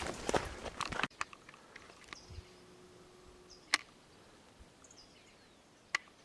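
Footsteps and brush scraping on a narrow dirt trail for about the first second, stopping abruptly. Then quiet outdoors, with a few faint, short, high falling chirps and two sharp clicks.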